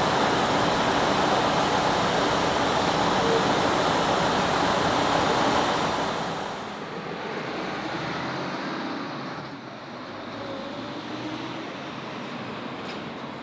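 Rushing noise of a train at a station, loud and steady, fading about six seconds in to a quieter rumble with a few faint high squeals.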